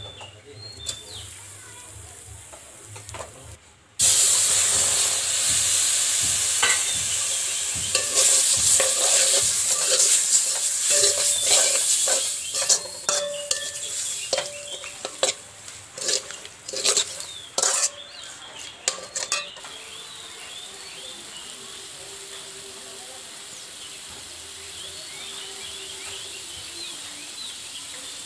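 Chicken pieces frying in a hot wok of spiced oil. A loud sizzle starts suddenly about four seconds in, with a metal spatula clinking and scraping against the pan. After the stirring stops, the sizzle settles to a quieter, steady frying.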